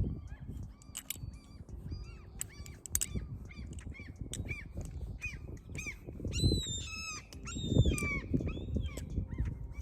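Svix Terra balisong being flipped: its handles and pivots click and clack over and over. Short high chirping calls repeat all through, and there are two louder low thumps about six and eight seconds in.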